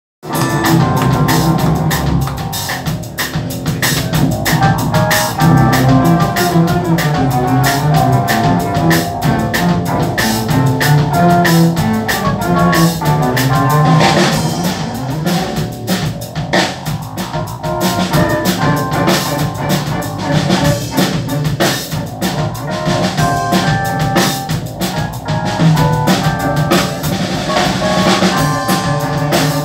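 A live trio playing: a drum kit keeping time throughout, with a bowed cello and keyboard carrying held notes.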